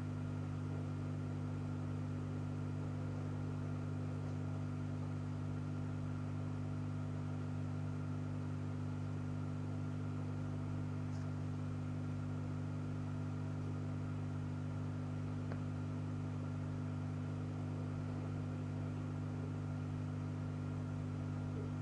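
A steady low hum of several fixed tones over a faint hiss.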